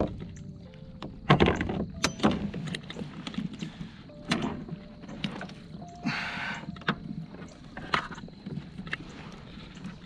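Knocks and clunks of gear and handling against a plastic kayak hull as a large blue catfish is picked up in the boat, with a short rustling rush about six seconds in.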